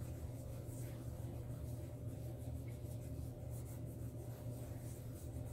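Faint, scratchy rubbing of hands working a skin-exfoliating product over palms and fingers, over a steady low hum.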